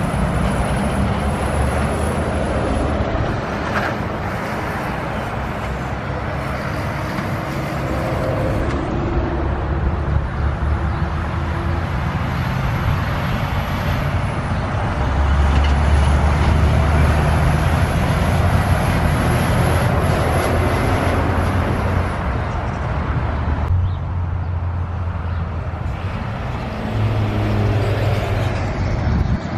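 Heavy diesel trucks driving past one after another, engines running under tyre and road noise. The sound swells loudest a little past the middle.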